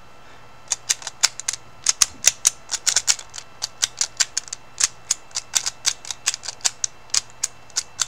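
Master Lock SpeedDial directional combination padlock's dial being worked through a combination: a quick, irregular run of sharp clicks, several a second, starting about a second in.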